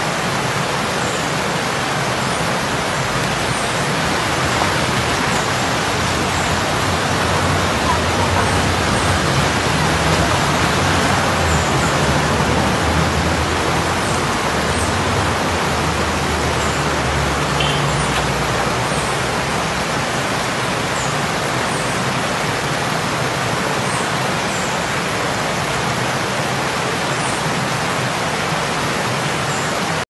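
Steady loud rushing noise, like fast-flowing water. A car's engine rumbles past underneath it in the middle.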